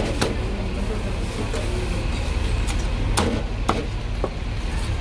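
Cleaver chopping roast suckling pig on a thick wooden chopping block: a handful of sharp, irregular knocks, the strongest right at the start and about three seconds in, over a steady low background rumble.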